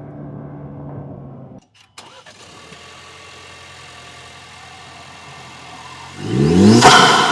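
Ford Ranger 2.3L EcoBoost turbocharged four-cylinder idling, with a brief break and a click about two seconds in; near the end the throttle is blipped, the pitch rising sharply and falling back.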